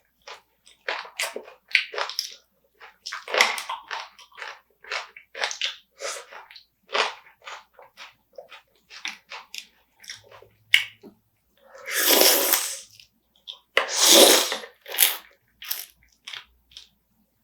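Close-up eating of spicy marinated raw crab: crunching and chewing through the crab's shell, with wet mouth sounds. Many short crackles and smacks, with two longer, louder noisy sounds about three-quarters of the way through.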